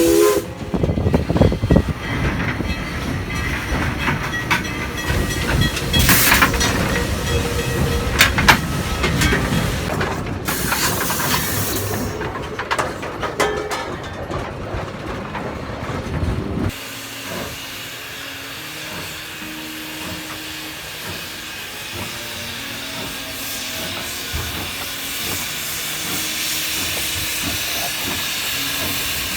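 Denver & Rio Grande Western No. 491 steam locomotive running: steam hissing with uneven low knocking and clanking. About two-thirds of the way through it changes abruptly to a quieter, steady hiss.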